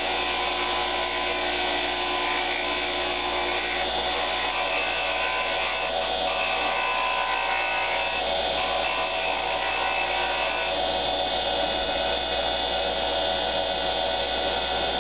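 Rikon wood lathe running steadily while a flat turning chisel cuts a spinning wooden pen blank.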